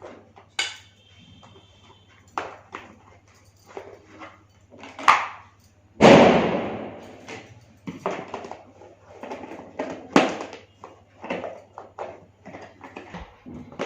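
Lemons being dropped and set into a plastic fridge storage box: scattered light knocks and plastic clatter, with one louder tumbling rush about six seconds in that dies away over a second.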